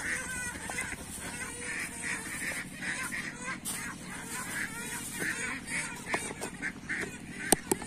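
Waterfowl calling over and over in the background, several short calls a second. A few sharp plastic clicks near the end come from a bucket lid being handled.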